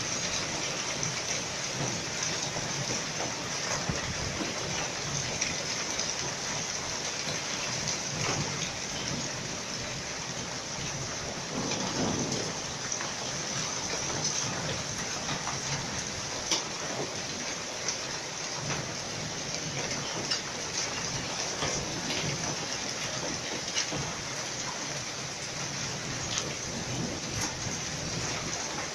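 Hailstorm: hail and rain pelting down without letup, a dense patter of small impacts over a steady hiss.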